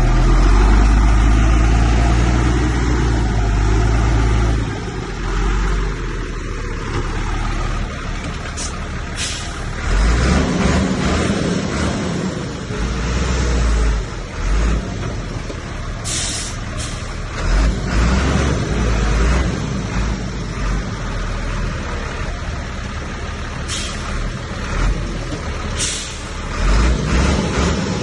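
Heavy diesel machinery, a bulldozer and dump trucks, running and working under load: a deep engine rumble that is loudest in the first few seconds, then swells and drops. Several short hisses break in over it.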